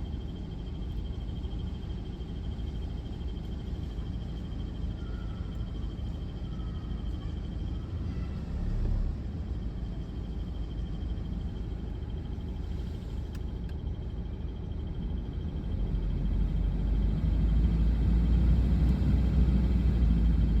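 BMW F31's engine running with a steady high-pitched squeak from the engine bay, which the owner takes for the air conditioner's drive belt. The low rumble grows louder over the last few seconds.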